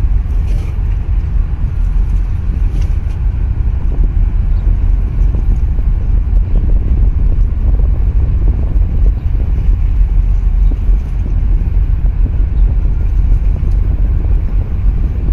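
Wind buffeting the microphone as a loud, low, unsteady rumble, with lapping harbour water underneath.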